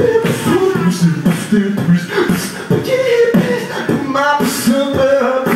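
Beatboxing into a handheld microphone through a PA: vocal drum sounds with sharp clicks and hissing cymbal-like bursts in a steady rhythm, mixed with hummed and sung bending tones.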